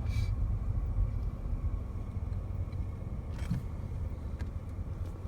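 Steady low rumble of a car, with a couple of faint clicks.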